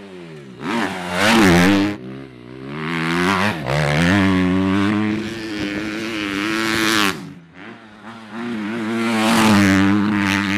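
Suzuki RM-Z250 four-stroke dirt bike engine revving hard as it is ridden round a motocross track. The throttle is opened and shut again and again, so the pitch rises and falls, with brief drops in the sound about two seconds in and again around seven to eight seconds in.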